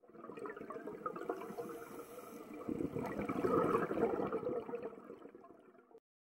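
Water bubbling and rushing, growing louder a little before the middle and fading out near the end.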